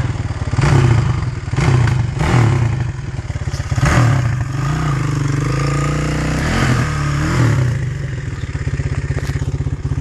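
Dirt bike engine revving in repeated throttle bursts, its pitch rising and falling about once a second, as the bike climbs a steep, overgrown trail under load.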